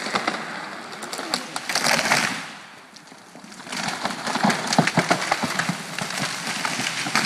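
A felled tree coming down, its branches cracking and snapping as it crashes through the neighbouring trees to the ground. It comes in two spells of dense crackling, one about two seconds in and a longer one from about four to seven seconds.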